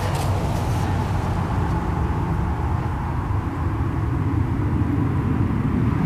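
Steady low rumble of distant motor-vehicle noise.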